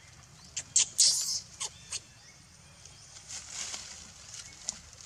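Dry fallen leaves crackling and rustling as a baby macaque moves about in them: a cluster of sharp crackles with one louder rustle in the first two seconds, then a softer rustle a little later.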